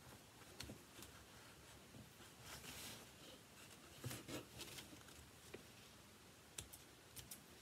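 Faint clicks of small thread snips opening and closing several times, with a brief soft rustle of stiff Aida cross-stitch fabric being handled.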